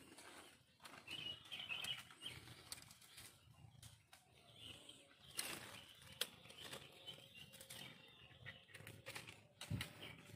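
Faint, irregular rustling and crackling of dry bamboo stalks and leaf litter, with a few sharper snaps, and birds chirping faintly in the background.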